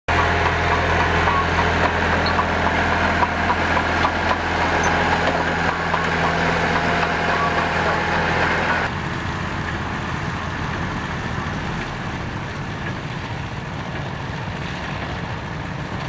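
A vintage crawler tractor's engine runs steadily close by with light mechanical clicking. About nine seconds in the sound changes abruptly to a quieter, more distant drone from a four-cylinder Massey Ferguson 35 tractor pulling a baler.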